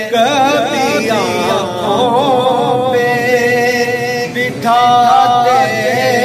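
A man singing a naat unaccompanied, with melismatic runs and long held notes; a new, higher held note starts about four and a half seconds in.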